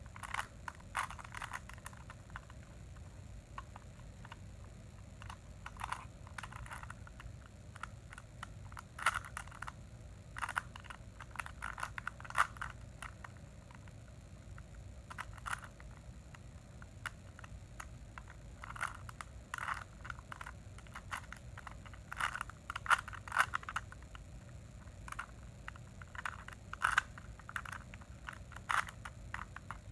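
Plastic Rubik's Cube being twisted by hand: irregular runs of clicking and scraping as the layers turn, with short pauses between runs of moves.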